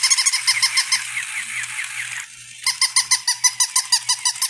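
Battery-operated plush toy puppies yapping electronically: a fast run of high-pitched yips, about seven a second, that breaks off about two seconds in and starts again half a second later.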